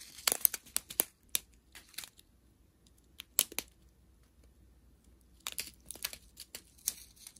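Clear plastic bags of resin diamond-painting drills crinkling and crackling as the strip of bags is handled. The crackling comes in several short spells with quiet gaps between them.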